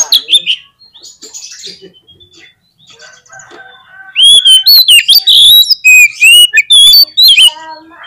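Oriental magpie-robin singing in full, vigorous song: scattered quieter chirps and whistles at first, then from about four seconds in a loud, fast run of varied whistled notes bending up and down, easing off near the end.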